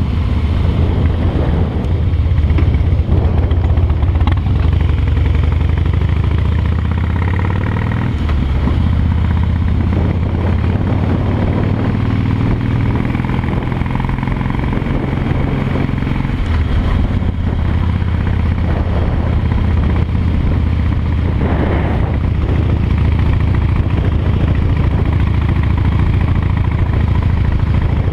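Harley-Davidson V-twin engine running as the motorcycle is ridden along a road, its low engine note rising and falling with the throttle.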